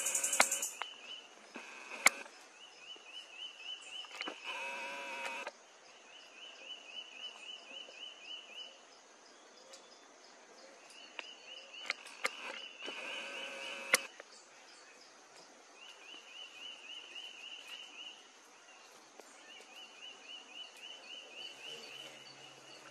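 Forest ambience: a repeated trill of rapid high ticks, in runs of two or three seconds every few seconds, over a faint steady high hiss. Two louder pitched calls and a few sharp clicks stand out.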